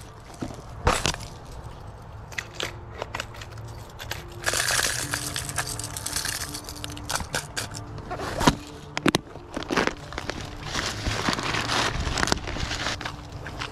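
Clear plastic tackle box handled with gloved hands: irregular clicks and knocks of the lid and the lures inside. There is rustling about four seconds in, and a longer stretch of rustling and knocking near the end as the box is stuffed back into a fabric backpack.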